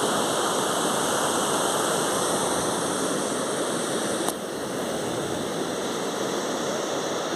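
Steady rushing noise, with one sharp click a little past the middle after which it is slightly quieter.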